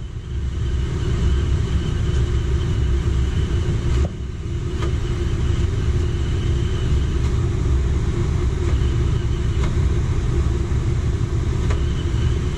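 Coleman Mach rooftop RV air conditioner running with its compressor and blower fan on, heard from beneath the ceiling vent: a steady low rumble with a constant hum. A click and a brief dip in level come about four seconds in.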